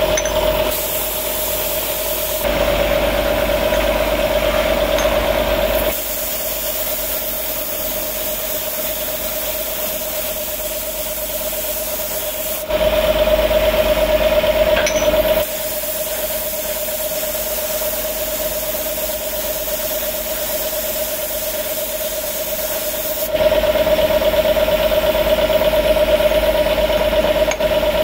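Compressed-air spray gun spraying paint: a steady hiss over a constant machine hum, the hiss and hum growing louder for a few seconds at a time, several times over.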